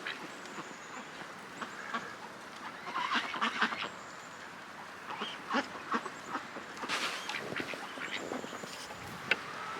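Domestic ducks quacking in short, scattered calls, bunched around three seconds in and again around seven seconds in.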